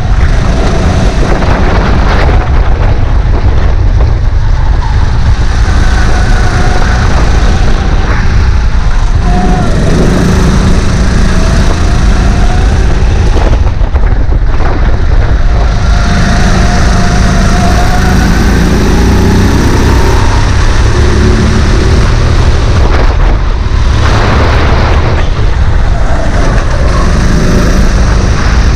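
Sodikart RX7 rental kart's 270 cc engine running hard on track, its pitch rising and falling repeatedly as the kart accelerates and slows through corners. Heavy low wind rumble sounds on the onboard microphone.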